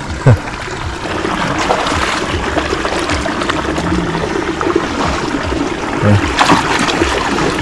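Canal water splashing and sloshing without a break as people wade and grope by hand in the water for fish.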